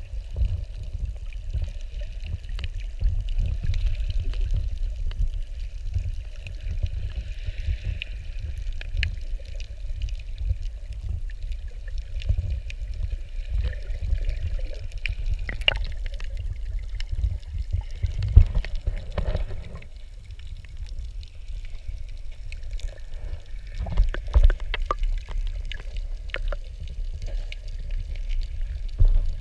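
Underwater sound of surging seawater: a constant muffled low rush and rumble, with scattered sharp clicks and knocks, a few louder ones about two thirds of the way in.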